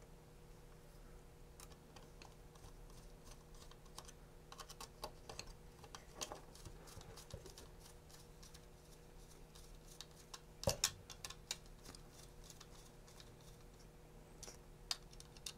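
Faint, scattered small clicks and taps of small screws and a mounting plate being handled and fitted onto standoffs by hand, with a louder cluster of clicks about ten seconds in.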